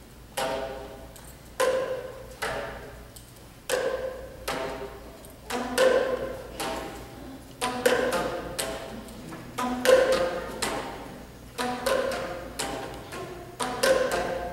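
Basketballs bounced on a stage floor in a rhythmic pattern, about one bounce a second with some quick doubles. Each bounce rings briefly with a pitched note.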